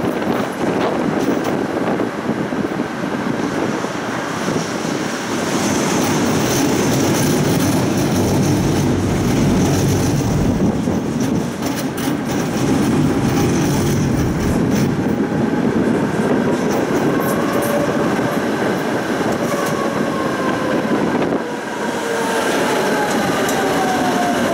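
Tram running along its rails, with a steady rumble and rattle of wheels and car body. In the last few seconds a few whining tones slide downward in pitch as a second tram passes close alongside.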